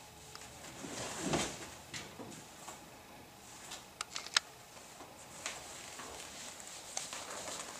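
Clothes hangers clicking on a wardrobe rail and a leather boot rustling as it is lifted off its hanger and handled: a few scattered sharp clicks, the sharpest a little past the middle.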